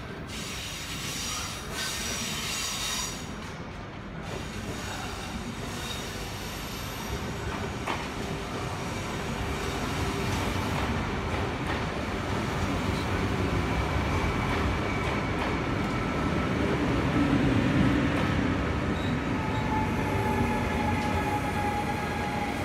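Double-deck SNCF TER electric multiple unit (Regio 2N) rolling in along the platform and passing close by, growing steadily louder, with thin high wheel squeal in the second half. Near the end a motor whine slowly falls in pitch as the train slows.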